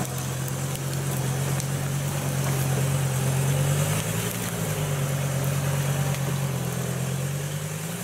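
Diesel engine of a mud-caked UMM off-road 4x4 running steadily at low revs, its note rising slightly about halfway through and again near the end as the truck crawls out of the mud.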